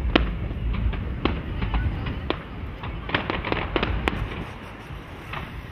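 Fireworks display: aerial shells bursting in irregular sharp bangs and crackles, with a dense cluster about three seconds in, over a steady low rumble.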